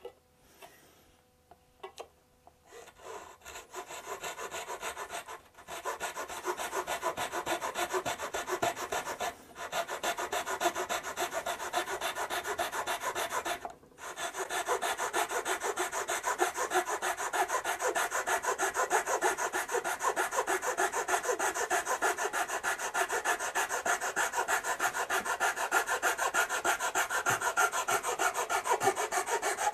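Flush-cut saw sawing through wooden trim in fast, even back-and-forth strokes, trimming a protruding end flush. The sawing starts about three seconds in and stops briefly three times before running on without a break.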